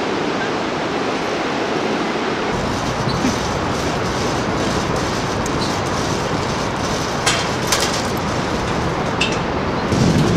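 Steady rushing noise of the Bhote Koshi river's white-water rapids in the gorge below, with a low rumble that grows louder near the end and a few sharp clicks in the second half.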